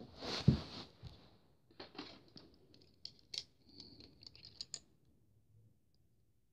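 Rustling with a soft thump about half a second in, then a run of light clicks and crinkles as small plastic parts of a Skymarks Boeing 737-800 model are handled. The clicks stop about five seconds in.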